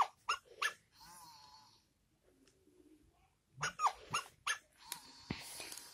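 Battery-powered plush toy puppies, including a Snuggles My Dream Puppy, playing recorded puppy sounds through small speakers. There is a wavering whimper about a second in, then a few short yips around four seconds.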